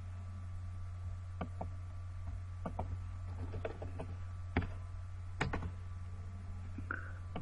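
Keystrokes on a computer keyboard: irregular light taps, a few louder ones about halfway through, over a steady low hum.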